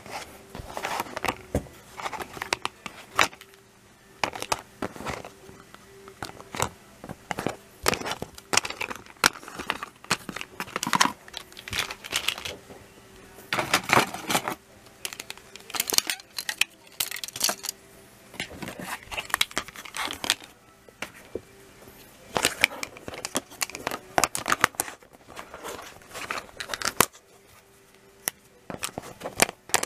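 Plastic Plarail toy train rails being handled and stacked: irregular clicks and clattering as the rail pieces knock against each other and the mat, mixed with some crinkling.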